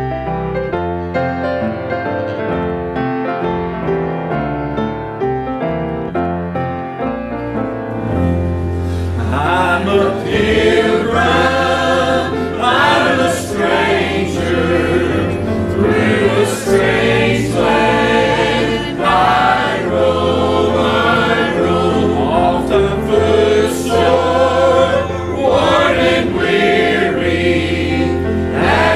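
Piano playing an introduction, then a mixed church choir comes in about eight seconds in, singing a gospel song to piano and bass guitar accompaniment.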